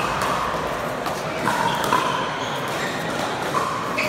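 Pickleball paddles striking a hard plastic ball in a rally: several sharp pops about a second or two apart, with short squeaks of shoes on the indoor court and a low murmur of spectators.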